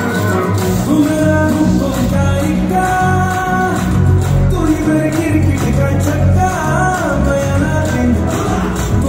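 Recorded song with a singing voice, played loudly over the sound system as music for a children's dance routine.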